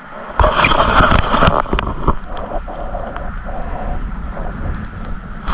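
Wind buffeting the microphone over lapping lake water, choppy with short knocks and rustles in the first couple of seconds, then a steadier rush.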